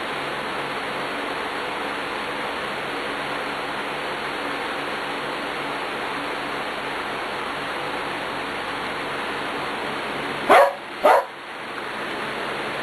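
A dog barks twice in quick succession, about half a second apart, near the end, over a steady rushing background noise.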